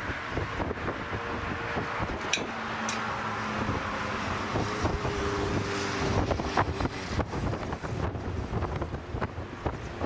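Strong gusty wind buffeting the microphone, with the faint steady engine noise of a twin-jet airliner coming in to land beneath it.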